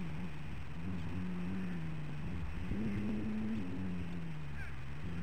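A steady motor drone, its pitch drifting up and down, with a few short bird chirps near the end.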